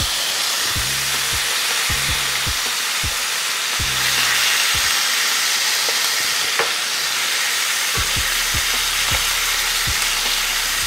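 Marinated oxtail pieces searing in hot oil in a skillet: a steady sizzle of the meat browning over high heat.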